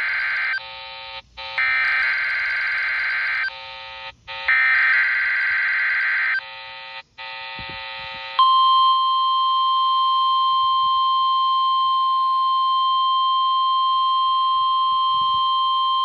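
NOAA Weather Radio SAME header data bursts, a harsh buzzy screech sent in repeats with short gaps, heard through the small speaker of a RadioShack 12-254 weather radio: the end of one burst, then two more. After a brief pause about eight seconds in, the steady 1050 Hz warning alarm tone starts and holds, marking a Required Weekly Test.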